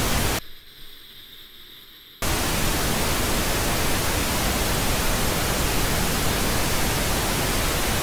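Television static: a loud, even hiss of white noise. About half a second in it drops to a quieter, thinner hiss with faint high tones, then comes back loud and steady after about two seconds.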